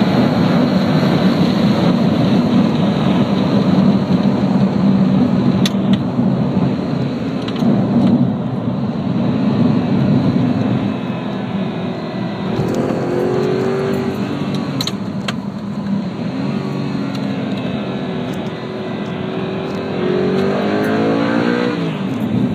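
Car engine and road noise heard from inside the cabin of a moving car, the engine note climbing about halfway through and again near the end as it accelerates. A couple of brief sharp clicks in between.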